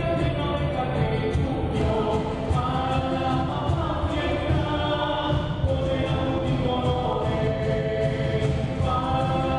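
Live Andean tinku music from an ensemble with drums: a group carries the melody in unison over a steady drum beat.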